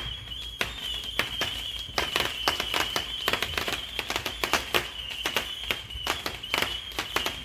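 Consumer fireworks going off, an irregular run of sharp pops and cracks, several a second and some louder than others, over a steady high tone.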